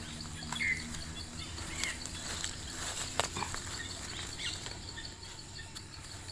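A small knife scraping and digging in forest soil and dry leaf litter as mushroom buttons are cut out, with rustling and a few sharp clicks. A couple of short bird chirps come in the first two seconds, over faint insect ticking.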